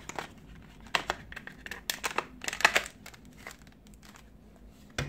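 Hard plastic clicks and knocks of a Bosch 12 V cordless drill's battery pack being fitted into the drill's handle, with a few sharp clicks about one, two and nearly three seconds in.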